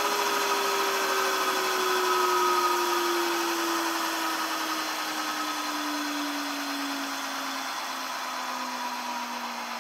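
Rolls-Royce Dart turboprop engine being dry-cycled on its starter motor, with no fuel or ignition, its centrifugal compressors and turbine spinning down. A whine falls steadily in pitch and slowly fades, with fainter higher whines falling alongside over a rushing hiss.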